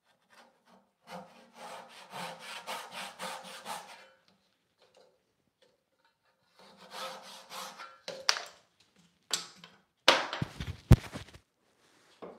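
Fine-toothed hand saw cutting walnut in two runs of quick back-and-forth strokes, about five a second, followed near the end by a few sharp wooden knocks, the loudest about eleven seconds in.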